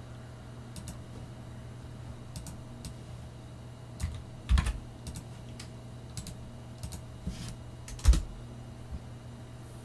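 Scattered clicks and taps of a computer keyboard and mouse while a command is copied and pasted into a terminal, with a few louder key strikes about four and eight seconds in. A faint steady low hum runs underneath.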